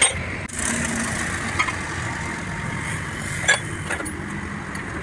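Steel tools clinking against a truck's wheel hub and axle end a few times, with a sharp clink at the start, another about a second and a half in, and the loudest about three and a half seconds in, over a steady background hum.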